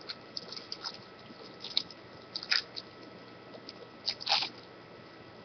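Trading card pack wrapper being torn open and crinkled by hand, in several short crackles. The loudest come about two and a half seconds in and just after four seconds.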